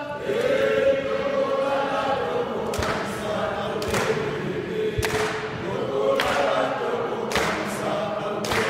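A crowd singing together, many voices in unison, with a sharp beat about once a second that starts about three seconds in and rings in a large reverberant hall.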